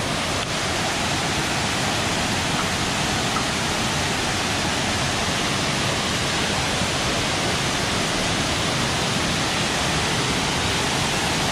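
A wide waterfall pouring in several streams over a rock ledge into a pool: a steady rush of falling water.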